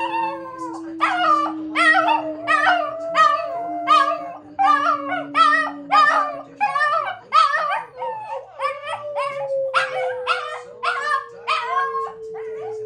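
Two Shih Tzus howling together in repeated wavering yowls, about two a second. A long steady tone runs underneath and slowly falls in pitch.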